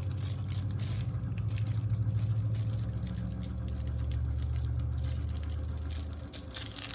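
A low steady hum, loudest in the middle and fading out about six seconds in, with light crinkling and rustling of a thin plastic sheet being handled.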